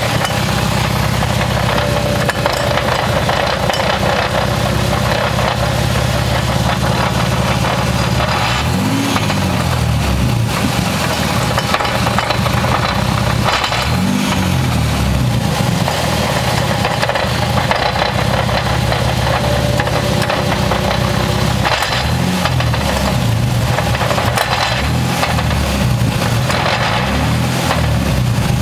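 1994 Toyota Supra Turbo's twin-turbo straight-six running under way, its note rising and falling a few times, over a loud drivetrain noise that the owner traced to a bad rear wheel bearing.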